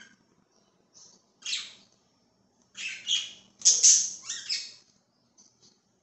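Pet budgerigars giving harsh, scratchy chirps and squawks in short bursts: one about a second and a half in, then a louder run of calls between about three and four and a half seconds in.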